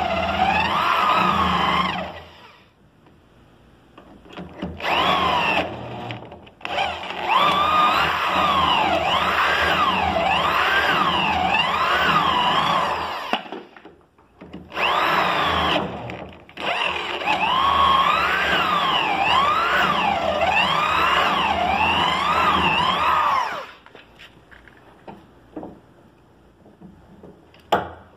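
Handheld electric drill boring through a drilling jig into the edge of a furniture panel. It runs in several long bursts, with the motor pitch rising and falling as the bit loads up and frees. It stops a few seconds before the end, leaving a few light knocks.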